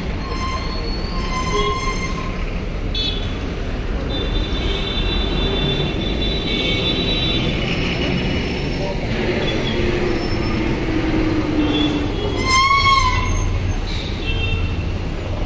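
City street traffic with buses: a steady low rumble of engines, with high squealing tones coming and going. A louder pitched whine rises and falls briefly about 13 seconds in.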